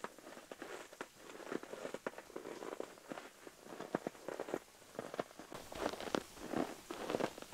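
Work boots treading and shuffling on a loose layer of white granules, crunching them down: a steady patter of short crackly clicks, growing louder toward the end.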